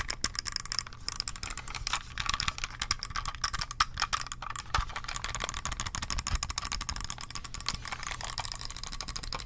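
Rapid clicking of an Acer computer mouse's buttons mixed with fingertip tapping on its plastic shell: a dense, unbroken run of small sharp clicks, several a second.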